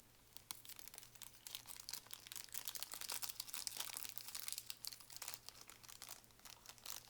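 Small plastic surprise bag crinkling as it is torn open and its contents pulled out, a run of faint, dense crackles that is busiest midway.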